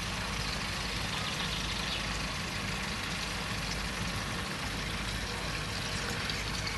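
Camping stove burner running with a steady roar, bacon sizzling and crackling in the pan on top.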